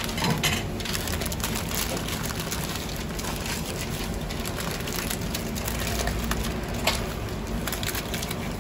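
Paper wrappers crinkling and rustling as döner wraps are rolled up in them by hand, in a run of irregular crackles, with one sharper crack about seven seconds in.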